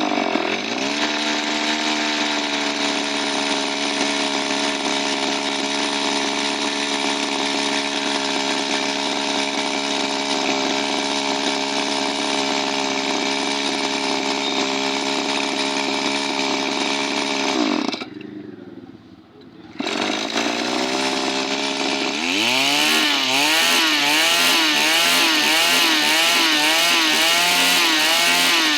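Small two-stroke engine running at speed. About 18 s in it sags and nearly dies, picks up again about two seconds later, and from about 22 s in it runs higher, its speed surging up and down almost twice a second, hunting rather than holding steady.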